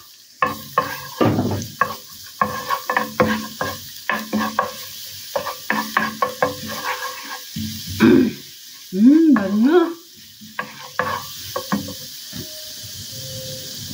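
Minced garlic sizzling in hot oil in a ceramic-coated pan, stirred with a wooden spoon that knocks and scrapes against the pan. A short wavering hum comes in about eight seconds in.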